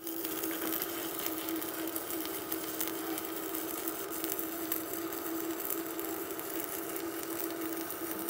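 Stick (arc) welding: an electrode arc from a Boss ARC210E inverter welder at about 150 amps crackling steadily on thick steel plate, with a steady low hum under it. It starts abruptly right at the beginning.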